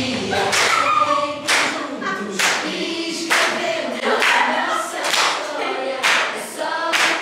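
A group of voices singing a pop song together, with sharp claps landing on the beat about once a second.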